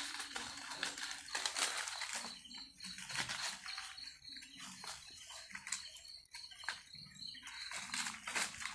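A steady high chirring, as from night insects, that breaks off and on, with rustling and crackling through vegetation.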